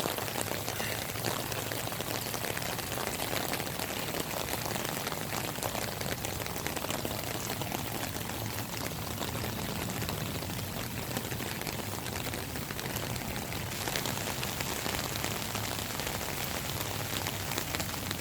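Heavy rain falling steadily, pattering on the ground and on standing floodwater.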